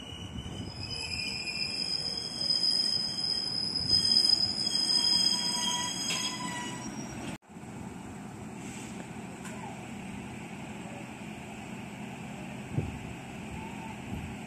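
Train rolling with a high-pitched squeal, several shrill steady tones over a running rumble. About halfway through, the sound cuts off abruptly and a quieter steady rumble follows, with a single knock near the end.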